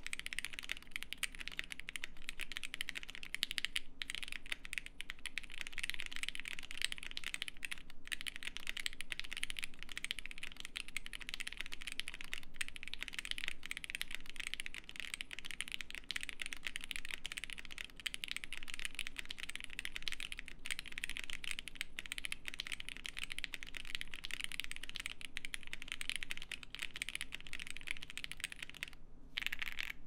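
Fast, continuous typing on a Bubble75 prototype mechanical keyboard with Pinoko switches and EVA foam dampening: a dense stream of keystroke clacks, with a brief pause shortly before the end.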